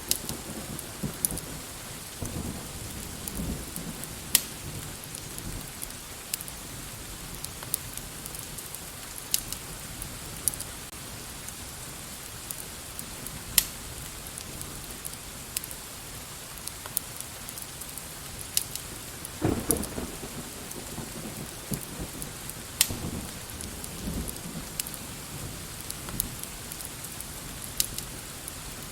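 Steady rain with low rumbles of thunder that swell early on and again about two-thirds through, over scattered sharp crackling clicks.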